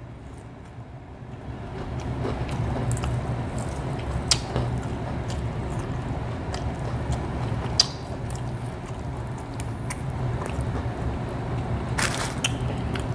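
Close-miked eating sounds: chewing and wet mouth noises over fried chicken, with a few sharp clicks. A steady low hum runs underneath from about two seconds in.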